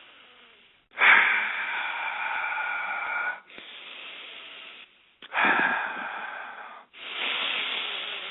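A man taking slow, deep breaths close to the microphone to calm himself down: a run of about four long, noisy breaths, each one to two seconds, the loudest starting about a second in.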